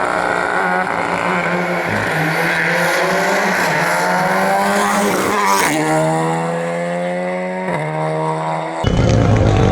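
Rally car engine accelerating hard through the gears, its pitch climbing and dropping back at upshifts about two, five and a half and seven and a half seconds in. Near the end the sound changes abruptly to a louder, lower engine sound.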